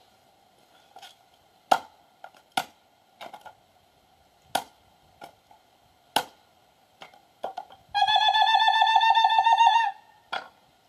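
Chopping blows splitting kindling on a wooden chopping block: about four sharp strikes with several lighter knocks between them. Near the end a loud, high, warbling whistle-like tone lasts about two seconds.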